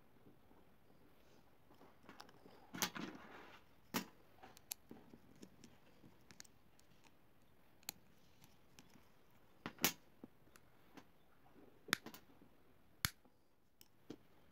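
Sharp clicks and taps from handling a plastic two-pin plug and a pair of pliers on a tabletop, about half a dozen spread apart, with a brief rustle about three seconds in.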